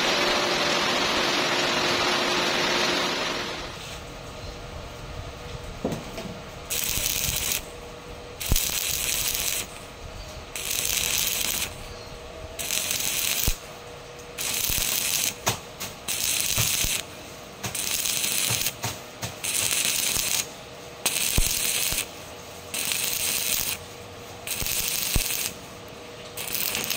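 Stick-welding arc from an E6013 electrode on thick steel plate, crackling in short bursts of under a second, one about every second and a half, the arc broken and struck again each time, with sharp clicks between some bursts. Before the welding starts, a steady loud hiss stops about three seconds in.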